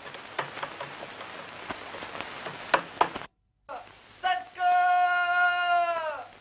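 Hiss and crackle of an old film soundtrack, broken by a brief dropout. Then a single long musical note is held steady and slides down in pitch as it ends.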